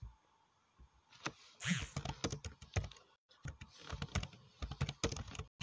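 Rapid, irregular typing taps and clicks, starting about a second in, with a couple of short rustles in between.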